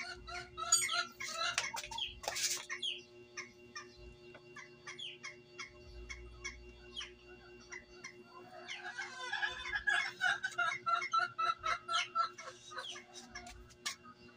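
Chickens clucking in quick runs of short calls, with a louder, busier stretch of calls about two-thirds of the way through. A sharp click comes about two seconds in.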